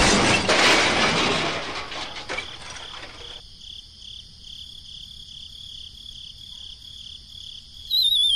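Cartoon-style sound effects after a crash. The noise of the crash fades away over the first three seconds, leaving a steady, high, evenly pulsing chirp. Near the end a louder, wavering whistle starts and slides downward.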